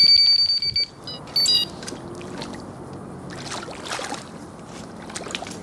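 Electronic carp bite alarm sounding a run: a loud, rapid, near-continuous high-pitched beeping as a hooked sturgeon takes line, cutting off just under a second in. A few short beeps follow, then faint water and scattered clicks.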